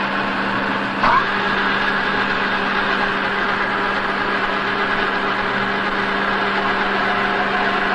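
Double-ended spindle facing and taper-turning machine running steadily as its tool cuts into the nose end of a lathe spindle forging, with a constant hum and a brief rising squeal about a second in.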